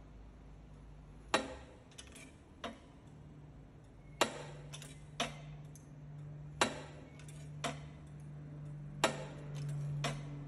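Foot-operated shrinker stretcher's jaws clamping and releasing a strip of mild steel, giving sharp metallic clicks every second or two, some in quick pairs. A faint steady hum runs underneath.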